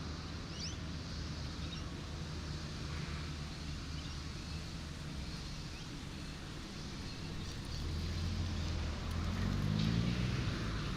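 Road traffic: a vehicle engine hums steadily, growing louder toward the end, its pitch rising about nine to ten seconds in as it passes or accelerates. Over it runs a steady background hiss.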